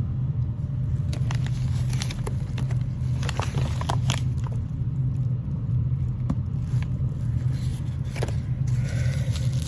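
Domestic cat purring loudly right by the microphone, a continuous low rumble, with scattered clicks and crinkles of cardboard packaging being handled.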